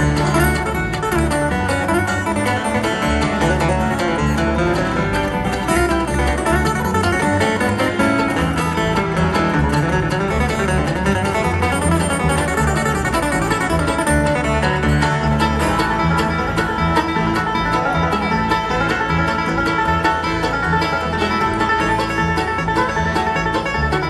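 Live bluegrass band playing an instrumental passage, with acoustic guitar and banjo picking over a steady bass, heard in a reverberant arena.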